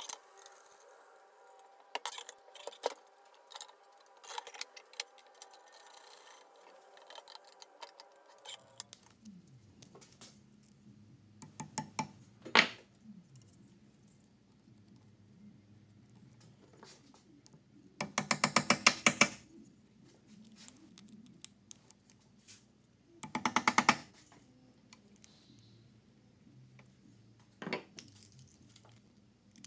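Small metal clicks and taps from hand work on a cut-off saw's motor housing, with two quick runs of rapid clicking, each about a second long, a few seconds apart.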